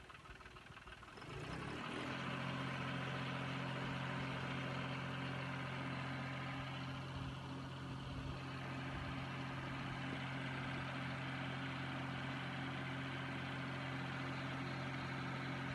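John Deere tractor diesel engine starting about a second and a half in and settling into a steady idle. It is running on diesel fed from a plastic bottle hung beside its injection pump.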